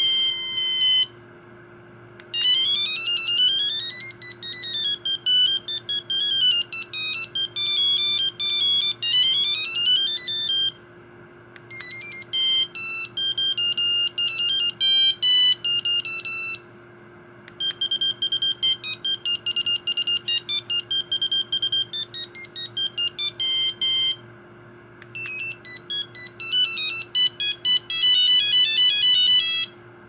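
Sony Ericsson T100 mobile phone playing its built-in ringtones one after another: high, beeping electronic melodies, four of them, each cut off after a few seconds with a short pause before the next. The first has fast runs sweeping up and down in pitch.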